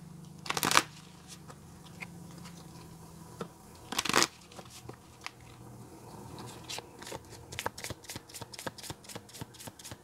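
A deck of tarot cards being shuffled by hand: two brief swishes of cards sliding, then, from about two-thirds of the way through, a quick run of card flicks at about four a second.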